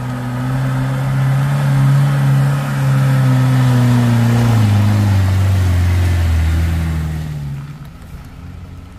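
Engine of a Mitsubishi L300 pickup running as it drives past close by. Its pitch drops about halfway through as it goes by, and then it fades away.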